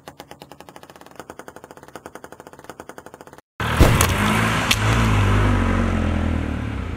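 A plastic ping pong ball bouncing fast on a hard surface, a rapid run of light ticks. About three and a half seconds in, a car passes close by and its tyre crushes the ball with a sudden loud pop. Car engine and tyre noise runs on after that and slowly fades.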